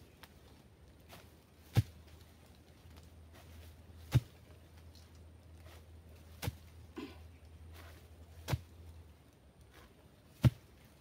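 Slow, evenly spaced chopping into wood: five sharp strikes, one about every two seconds.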